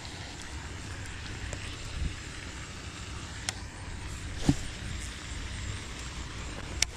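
Steady low rumble of outdoor noise on the microphone, with a few sharp clicks and a thump as a baitcasting rod and reel are handled through a cast; the loudest click comes near the end.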